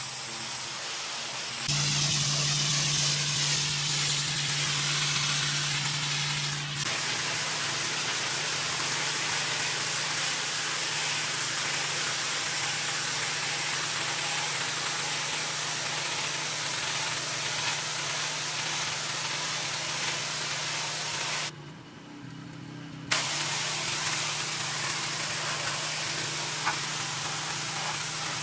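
Pressure washer spraying a concrete driveway: a steady hiss of the water jet over the machine's low, steady hum. The spray cuts out for about a second and a half roughly three quarters of the way through, then starts again.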